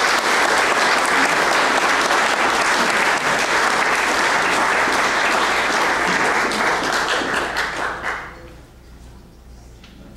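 Audience applauding, dying away about eight seconds in and leaving faint room noise.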